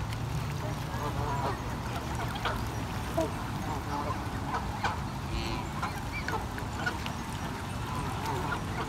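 A flock of Canada geese honking on and off, in short scattered calls.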